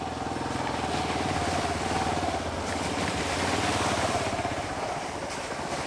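Motorcycle engine running steadily under way, heard from the rider's seat, with a steady rushing noise over it.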